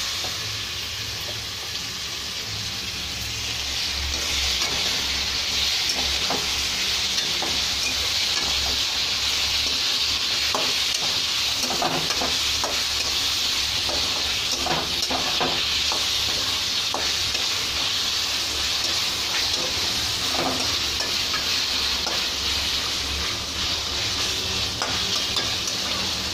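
Raw chicken pieces frying with onions in hot oil in a metal kadai: a steady sizzle that grows louder over the first few seconds, while a spatula stirs and scrapes the pan with repeated knocks, busiest in the middle.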